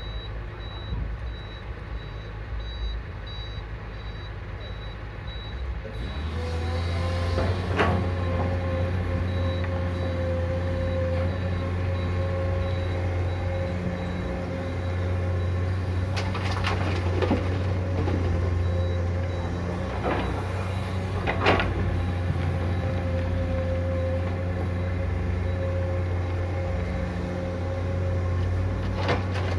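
Komatsu PC200 hydraulic excavator's diesel engine working under load, stepping up to a louder steady drone about six seconds in. Several sharp knocks of rock as the bucket loads a dump truck, and faint evenly repeated beeping in the first few seconds.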